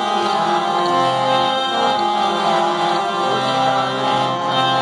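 Harmonium playing a melody in long, held notes.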